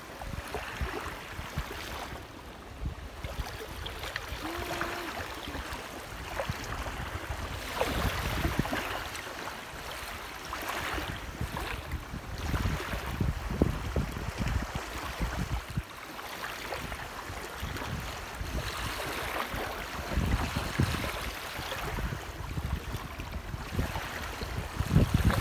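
Small waves lapping on a pebble lakeshore, with gusts of wind on the microphone.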